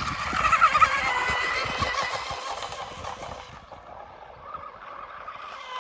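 Motor whine of a radio-controlled hydroplane boat skimming across the water, warbling in pitch; loudest about a second in, then fading as the boat runs away down the pond.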